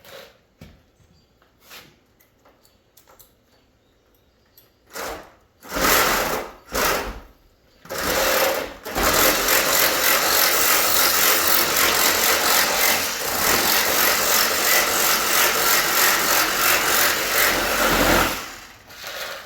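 A power saw cutting through the ends of an air conditioner's copper-and-aluminium coil. It makes a few short cuts, then runs steadily with a fast, even rhythm for about nine seconds before stopping near the end.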